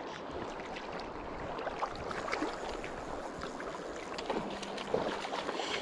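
Shallow river current rushing and rippling, with scattered light rustles and clicks close by.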